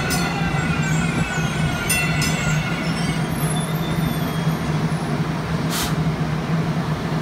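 DART electric light rail train rolling slowly past and drawing to a stop at the platform. A steady low hum runs throughout, with a faint electric whine over the first three seconds and a short hiss near the end.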